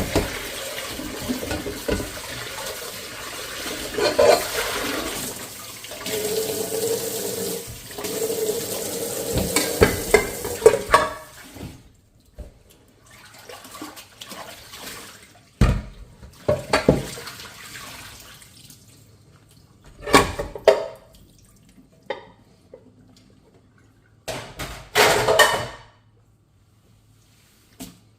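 Kitchen tap running while dishes are rinsed under it; about twelve seconds in the water shuts off, followed by a few separate knocks and clatters of dishes being handled and set down.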